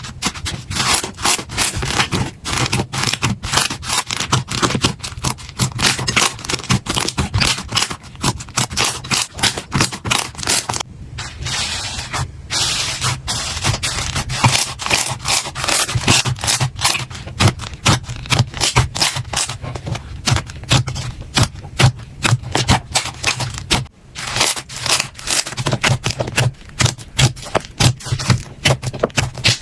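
Slime being squished and pressed by hand: a dense, fast run of sticky clicks and crackles, with a stretch of smoother scraping about eleven seconds in.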